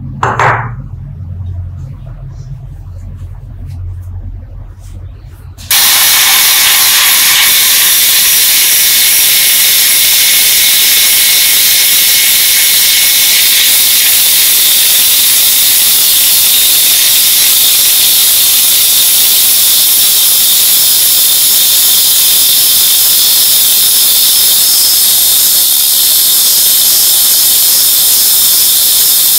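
An abrasive grinding wheel grinding a small ball-shaped steel knob: a loud, steady, hissing grind that starts suddenly about six seconds in. Before it there is a low hum and one brief sharp sound.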